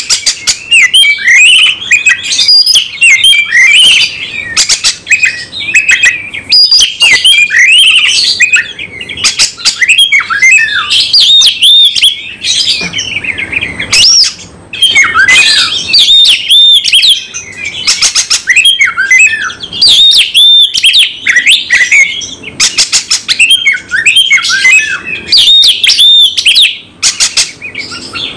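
Oriental magpie-robin (kacer) singing a loud, nearly unbroken song of varied whistles, chirps and rapid rattling notes, with only brief pauses. This is the bird's agitated, full-repertoire 'fighting' song.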